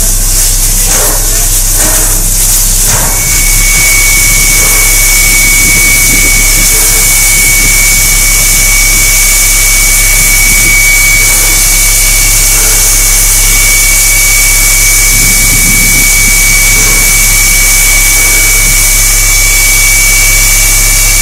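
Steam locomotive (Canadian National 89, a 2-6-0) with a loud, steady hiss. In the first three seconds there are a few uneven exhaust chuffs. After that the engine stands still with a thin, steady high whine over the hiss.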